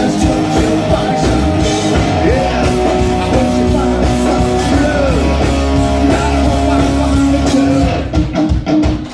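Live rock band playing loud with electric guitars and drums. About a second before the end the full sound breaks into a few separate stop hits as the song closes.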